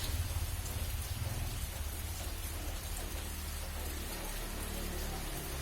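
Steady heavy rain falling, an even hiss over a continuous low rumble.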